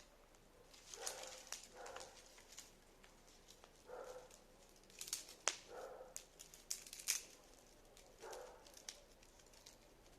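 Short animal calls, about six of them spaced one to two seconds apart, with sharp clicks and crackles in between.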